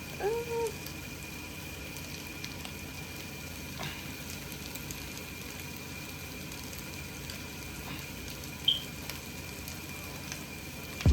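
Bacon and pancakes frying in pans, a steady sizzle.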